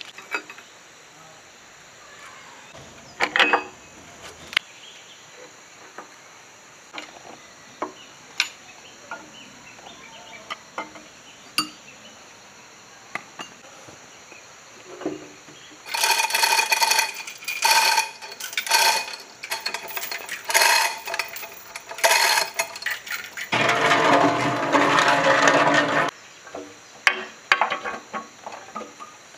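Metal chain and a cast-iron diesel engine block clanking, as the block is rigged on a rope and chain to be hoisted. Sharp, ringing metallic clinks come in a quick run past the middle, followed by a couple of seconds of rough scraping, with lighter knocks before and after.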